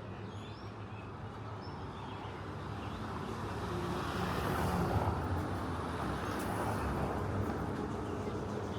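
A motor vehicle drives past close by, its engine and tyre noise growing louder to a peak about halfway through and staying loud afterwards.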